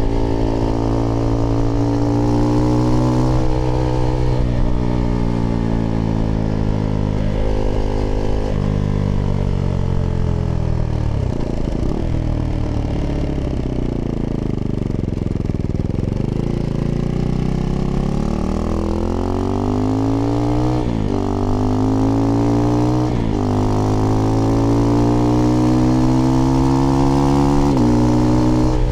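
Husqvarna Svartpilen 401's single-cylinder engine running through an IxRace Mk.2 aftermarket exhaust with a modified dB killer, heard while riding. It slows and then picks up again around the middle, and near the end pulls through the gears with three quick upshifts, the pitch dropping at each shift.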